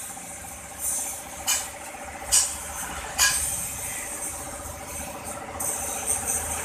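Three sharp knocks on a tyre and steel wheel rim, about a second apart, while the tyre bead is being broken loose. High hissing comes and goes over a steady mechanical hum.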